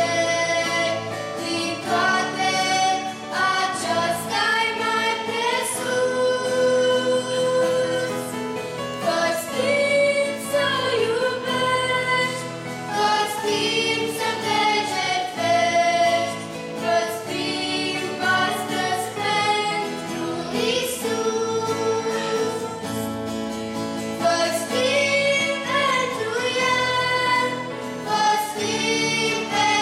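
Several girls' voices singing a gospel hymn together into microphones, with sustained, gliding sung notes throughout.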